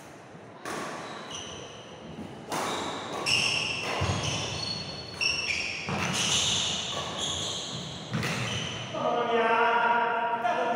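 Badminton rally: a string of sharp racket-on-shuttlecock hits, about every one and a half to two seconds, ringing in a large echoing hall, with short high squeaks of shoes on the wooden court between them. A man's voice comes in near the end as the rally stops.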